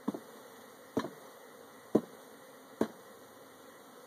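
Four sharp knocks about a second apart as a box of honey bees from a cutout is jarred against the hive to knock the bees loose into it, over a steady low hum of honey bees.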